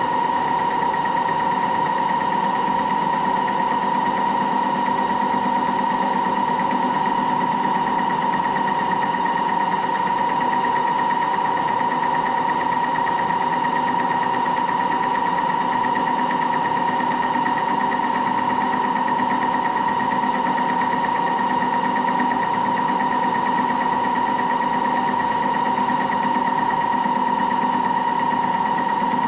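Moore jig borer running with its spindle-mounted boring head taking a light, slow-feed finishing cut on a radius in steel, a steady high whine that does not change.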